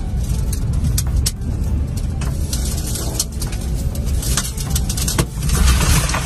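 Strong storm wind buffeting the microphone in a heavy, unsteady rumble, with scattered sharp ticks and a louder gust near the end.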